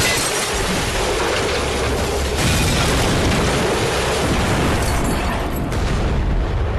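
Loud, continuous explosion rumble, with a fresh blast about two and a half seconds in.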